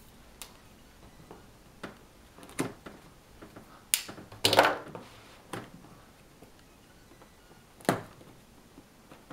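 Hands handling a cardboard retail box and picking at its seal sticker: scattered taps and knocks on the cardboard, with a louder scrape lasting about half a second near the middle.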